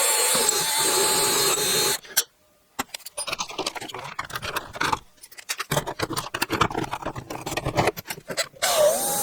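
A power drill runs for about two seconds and stops. Several seconds of irregular scraping and rasping follow as a bit works through a 3D-printed tough-PLA part, enlarging an undersized bolt hole. Near the end the drill starts again, its pitch wavering as it bores.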